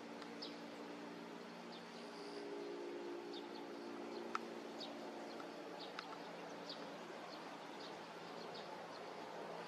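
Faint, short, high bird chirps, scattered at about one or two a second, over a steady low hum. A sharp click about four and a half seconds in, and a smaller one near six seconds.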